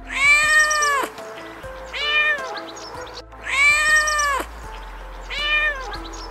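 Domestic cat meowing four times: a long meow then a shorter one, the same pair heard twice. Light background music runs underneath.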